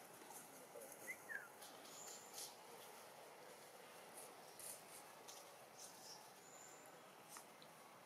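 Near-quiet outdoor background with faint crackles of dry leaf litter, several scattered light rustles, and a few faint high chirps about a second in.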